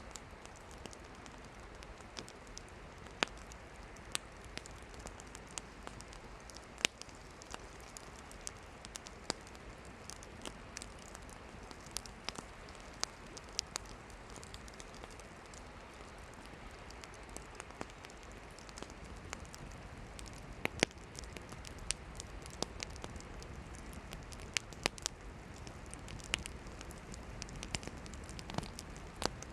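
Campfire of burning firewood crackling, with irregular sharp pops and snaps over a steady low hiss of the flames.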